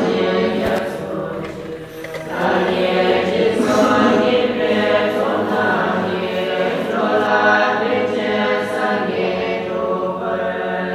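A group of voices singing in long held phrases, with a short break about two seconds in.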